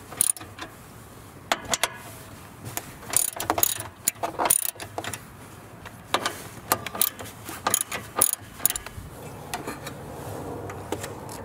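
Socket ratchet clicking in several quick runs as a 10 mm socket loosens the bolts holding a hood latch, with sharp metal clinks between runs. The clicking stops about three-quarters of the way through.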